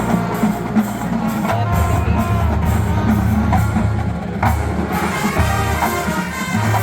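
Marching band playing a Motown arrangement: held low brass notes over steady drumline hits, the low notes swelling about a second and a half in.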